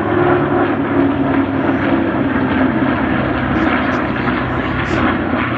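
Propeller aircraft engines running steadily, a loud pitched drone with a noisy wash above it.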